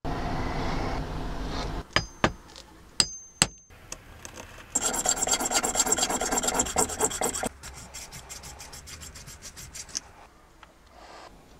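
A fine-bladed hand frame saw cuts a clear resin piece with quick, even back-and-forth strokes. The sawing is loudest for a few seconds, then goes on lighter and faster and stops near the end. Before the sawing there is a short stretch of scraping and four sharp clicks with little metallic pings.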